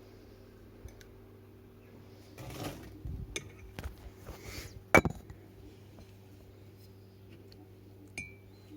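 Small objects being handled: a rustle, then several sharp clicks and knocks, the loudest about five seconds in, and a short ringing clink near the end, over a steady low hum.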